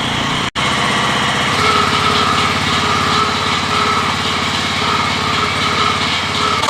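Newly installed small engine on a paving-block machine running steadily during a test run, with an instant's gap in the sound about half a second in.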